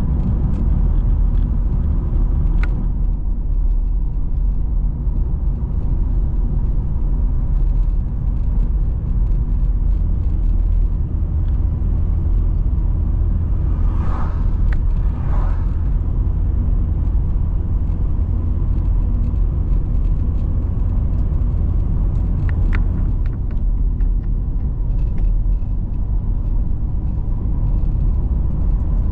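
A car driving along a road: a steady low rumble of engine and tyre noise, with a few faint clicks and two brief sounds close together about halfway through.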